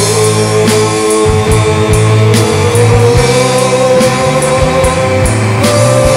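Psychedelic rock band recording: a long, slowly rising lead line held over bass and drums.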